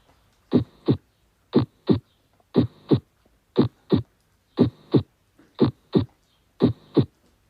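Recorded heartbeat: a steady lub-dub, the first and second heart sounds in pairs about a third of a second apart, repeating about once a second.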